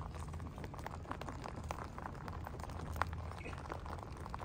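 A crowd of domestic rabbits chewing dry wheat grains: many small, quick crunches that blend into a patter like light rain, with one sharper crunch about three seconds in.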